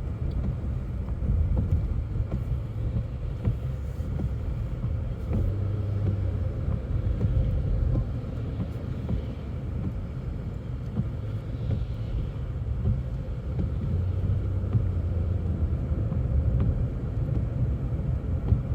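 Car cabin noise while driving: a steady low rumble of tyres and engine.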